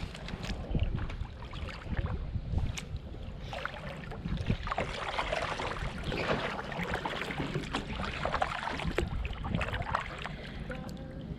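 Wind buffeting the microphone in a fluttering low rumble, with scattered knocks and clatter and a louder stretch of rustling noise in the middle.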